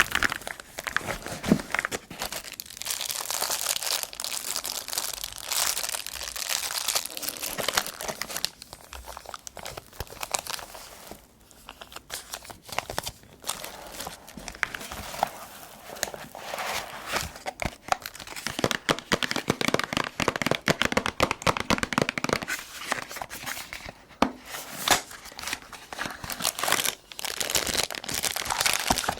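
Keyboard packaging being handled and unwrapped: steady crinkling and tearing of wrapping with many small crackles, easing off briefly about eleven seconds in.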